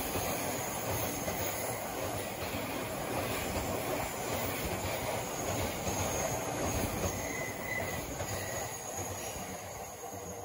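JR 209 series 1000 electric commuter train running past on curved track: a steady rumble of wheels on rail with a faint high squeal about seven seconds in, growing quieter near the end as the train draws away.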